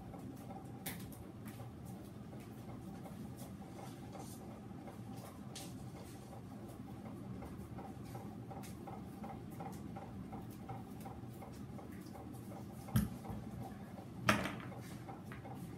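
Quiet room tone with a faint steady hum and a few light clicks, then two louder knocks a little over a second apart near the end, the second with a short rustle, as a stacking mat is handled.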